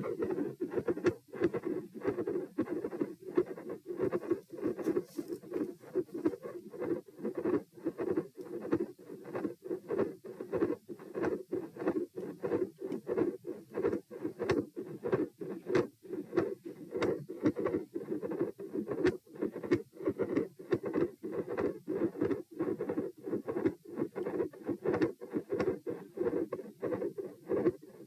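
Heartbeat heard through a stethoscope over the pulmonic area: a steady run of regular beats over a continuous murmur. The heart sounds are recorded as having a loud second heart sound (S2) and an intermittent murmur likened to machinery.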